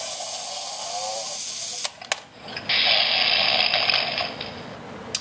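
Battery-powered Disney Pixar Cars Tip and Toot toy tractors whirring as their tipping mechanisms run. There are two steady bursts, each lasting a second or two, with a couple of clicks between them, as the tractors tip up onto their backs.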